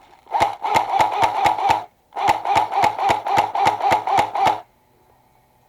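Electric airsoft gun firing two full-auto bursts, the first about a second and a half long and the second about two and a half seconds: rapid clicks of the cycling gearbox over a steady motor whine.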